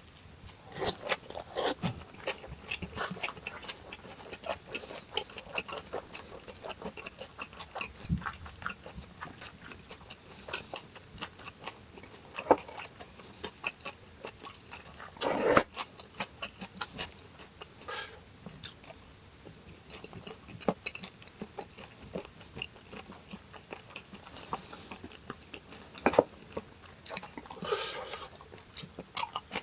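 Close-miked chewing and crunching of hong-eo samhap (fermented skate with boiled pork and kimchi): a steady run of moist clicks and crunches, with a few louder ones about halfway through and near the end.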